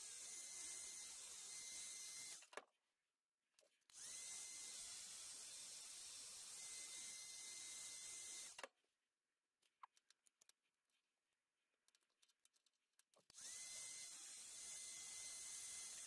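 Handheld electric heat gun running in three bursts to shrink heat-shrink tubing: a steady rush of air with a fan-motor whine that rises as it spins up. Each burst is switched off with a click, and faint ticks of wires being handled fill the gaps.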